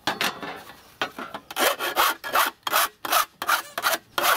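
Hand tool scraped back and forth along the edge of a thin sheet: a rasping stroke, one longer scrape at first, then quick strokes about three a second.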